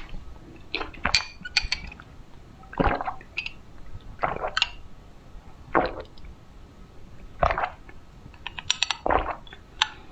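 Close-miked gulps of a drink being swallowed, about one every second and a half, with a few small wet clicks near the end.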